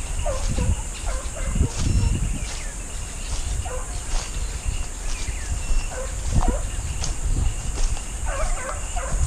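Hunting hounds on a chase, yelping and baying in many short cries, over a steady high buzz.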